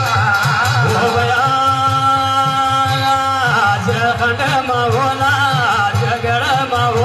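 Kumaoni jagar devotional music: a male voice sings long, wavering held notes over a steady beat on the hudka, the hourglass hand drum.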